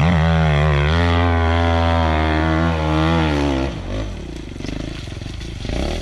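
Dirt bike engine pulling hard under load at fairly steady revs as it climbs a steep gravel hill, then dropping back to quieter, lower running about two-thirds of the way through as the bike loses momentum on the slope.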